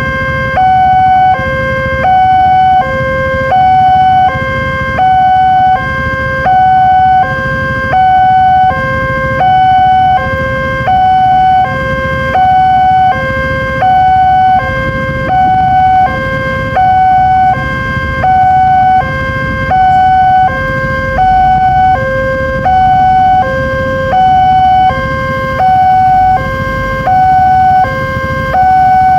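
Railway level-crossing warning siren sounding a tinny two-tone hi-lo alarm, switching evenly between a higher and a lower tone about every three-quarters of a second, with a steady low rumble underneath.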